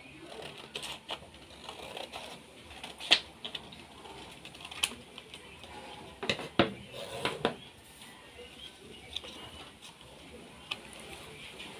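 Scissors cutting a sheet of paper, then paper being handled and folded on a tabletop: scissor snips and clacks and paper rustling, with a scatter of sharp clicks and knocks, the loudest about three seconds in.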